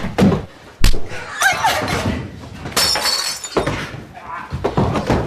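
Sound effect of a couple's domestic fight: a sharp thud about a second in, then things being smashed and shattering, with a voice crying out between the crashes and another heavy crash near the end.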